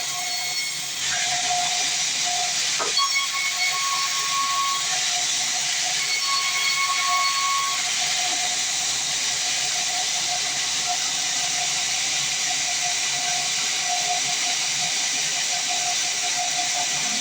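Band sawmill blade cutting through a log: a steady loud hiss with a thin whine in it, stepping up about a second in as the blade takes the wood.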